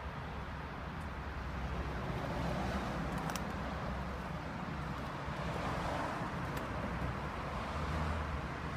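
Steady vehicle noise with a few faint clicks.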